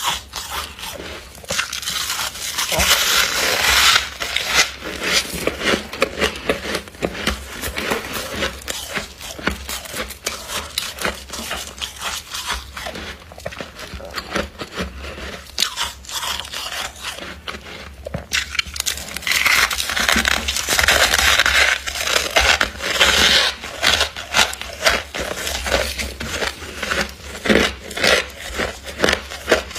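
Frost-coated ice from a humidifier being crushed by hand and bitten, with a dense run of crisp crackling crunches. Two longer, louder stretches of crumbling and scraping come a couple of seconds in and again about two-thirds of the way through.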